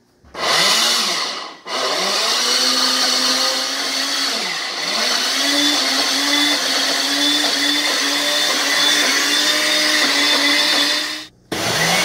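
Countertop electric blender running on a load of vanilla ice cream and Oreo cookies: a short first burst, then a long steady run. Its pitch rises each time it spins up and wavers as the thick mix churns. It drops out briefly near the end and then starts up again.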